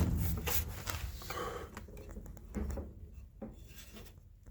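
A few light knocks and clicks of hands handling metal and pipe fittings, dying away to quiet room tone after about two seconds.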